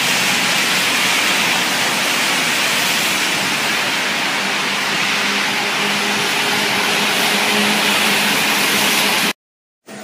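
Traffic on a wet city street: a steady, loud rushing hiss of tyres on the wet road, with a faint engine hum underneath.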